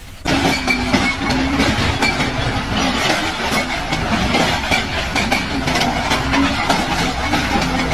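Heavy machinery running, with a continuous rattling, clattering noise and a faint steady hum; it starts and stops abruptly.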